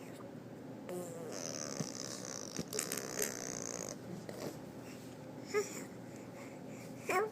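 A baby blowing raspberries, buzzing her lips to make fart noises for a few seconds, followed by two short high squeals of her voice near the end.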